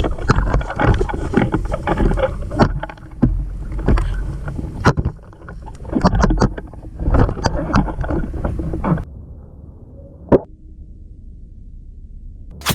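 Close rustling, brushing and crackling, as of foliage and clothing rubbing near the microphone while a player moves through undergrowth. It stops abruptly about nine seconds in. A single short click follows, then a sharp crack near the end.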